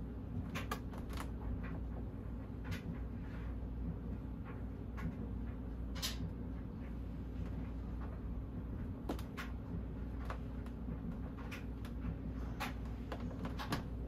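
Banvil/Envirofan Silver Line industrial ceiling fan running: a steady low motor hum, with scattered sharp clicks and ticks at irregular intervals.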